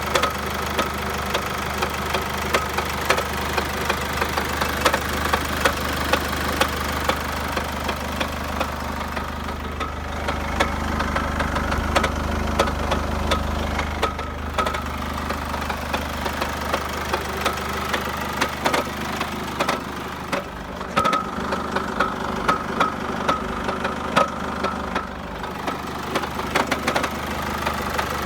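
Chevrolet Captiva 2.2 diesel engine idling with repeated sharp knocks over the steady running. The knock comes from a cracked flywheel scraping the aluminium housing, and it is heard at low revs.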